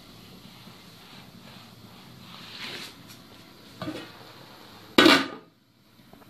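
Aluminium lid set down onto a wide aluminium cooking pan: a soft knock, then a loud metallic clatter about five seconds in that rings briefly.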